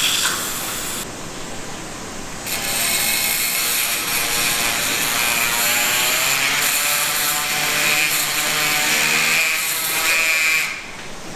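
Surgical power bone saw cutting through the lower femur to take out a bone wedge for a knock-knee axis correction. It runs as a steady whine from about two and a half seconds in and stops shortly before the end.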